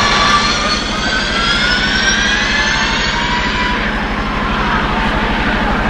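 Ford SuperVan 4's electric drivetrain whining as the van accelerates past: several high tones rise steadily in pitch for about four seconds, then fade as it pulls away, over a steady low rumble.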